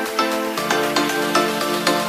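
Background music: a steady run of short notes, about four a second, with a lower part coming in about half a second in.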